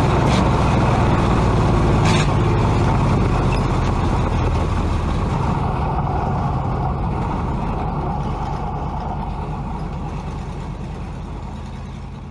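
A Pure Stock dirt track race car's engine running steadily at low revs as the car rolls slowly, heard from inside the cockpit. The sound gradually fades away over the last several seconds.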